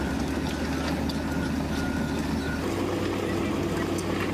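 Heavy mixer truck engine running steadily, its note shifting about two-thirds of the way through, with short high beeps now and then and light scraping of hand tools on wet concrete.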